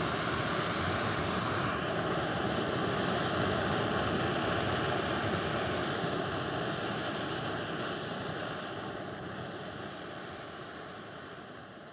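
Small camping gas stove burner running with a steady hiss, heating water for coffee; the sound fades away over the last few seconds.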